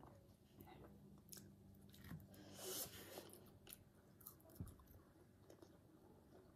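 Faint close-up chewing and biting of crisp fried food, with a few short soft crunches scattered through.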